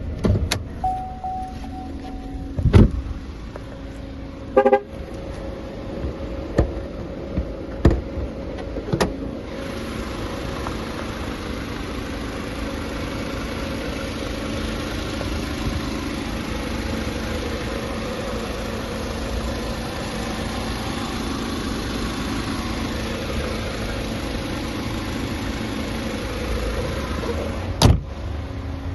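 Sounds from a car: several sharp clicks and thumps with a short electronic tone in the first few seconds, then a steady even running noise from about ten seconds in, and one more thump near the end.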